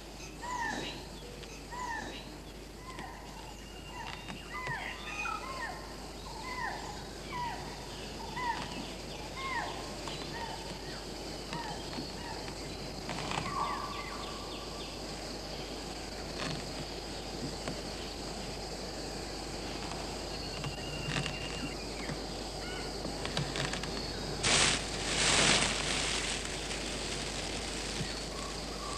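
Night-time forest ambience: a small animal's short falling call repeats about once every three quarters of a second for the first ten seconds or so, over a steady high hiss, and two loud rushing noises come near the end.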